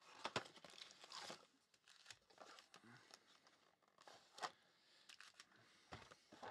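Faint tearing, crinkling and rustling of packaging as a cardboard box of Mosaic Euro 2020 soccer cards is opened and its foil-wrapped packs are lifted out and stacked, with a few sharp clicks in between.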